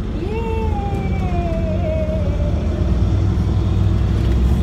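Inside an IVECO Urbanway 18 Hybrid articulated bus under way: a steady low drivetrain rumble that grows louder. Near the start a whine rises, then slowly falls away over the next two seconds.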